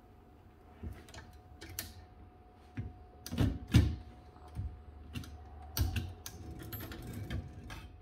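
Irregular metallic clicks and clacks from a 1931 Urania 7 typewriter as its carriage is handled, the loudest clack a little before halfway through.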